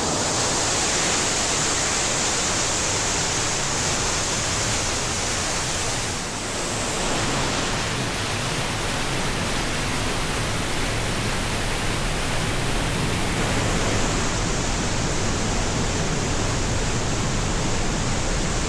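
Rushing mountain creek or waterfall: a loud, steady rush of water, with a brief small dip about six seconds in.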